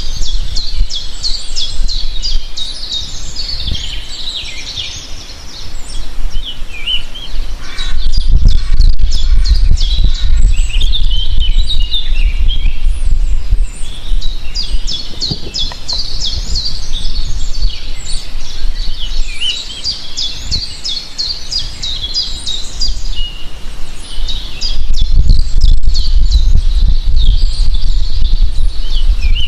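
Several songbirds singing together outdoors: overlapping high chirps, fast trills and short whistled phrases. A low rumble underneath swells about a quarter of the way in and again near the end.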